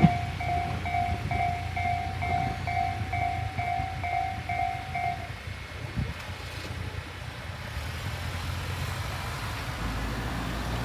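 Electronic Japanese level-crossing warning bell of the Tobu Tojo-line type, ringing a little over twice a second and stopping about five seconds in as the crossing clears after the train. A low train rumble goes on underneath, with a single knock about six seconds in.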